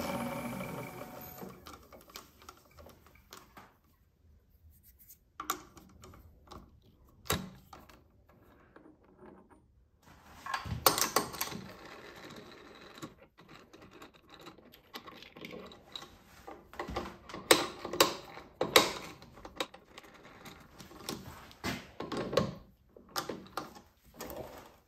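Wood lathe motor winding down and fading out in the first second or so, then scattered sharp metal clicks and clunks as a brass workpiece is handled and fitted into the lathe's metal jaw chuck.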